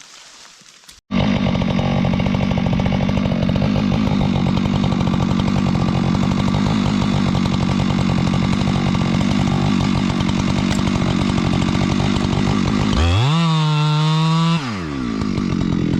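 Chainsaw engine running steadily at high revs, starting abruptly about a second in. Near the end the engine pitch rises, holds for a moment and then falls back.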